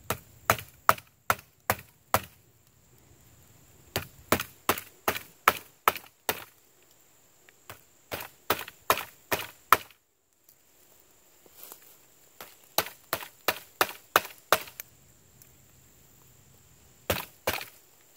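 Repeated sharp wooden knocks, about three a second in runs of six or seven with short pauses, as a small Swiss Army knife's blade is beaten into a freshly cut green sapling stick.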